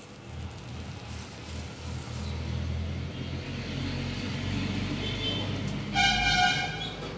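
Road traffic passing by: a low vehicle rumble swells about half a second in and carries on. About six seconds in there is a short, loud, high tone lasting under a second.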